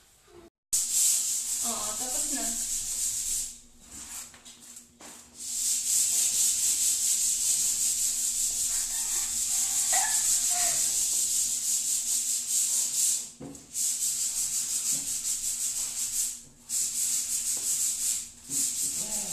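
Fast rasping scrape of floor tiles being sanded by hand with a small abrasive pad, in long runs broken by short pauses, one of about a second and a half early on.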